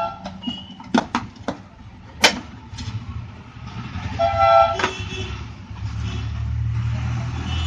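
Street traffic: a vehicle horn sounds briefly at the start and again about four seconds in, and a vehicle engine rumbles by through the second half. A few sharp clicks and knocks come in the first two or so seconds.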